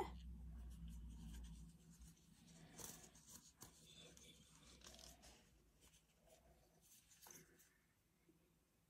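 Near silence with faint rubbing and a few small clicks: an action figure being handled as a vest accessory is worked onto it.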